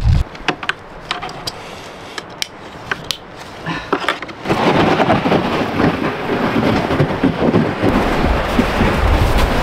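A few scattered clicks and knocks as a child is strapped into a sled. Then, from about four and a half seconds in, the steady crunching and scraping of a sled dragged over snow with footsteps. A low rumble of wind on the microphone joins in near the end.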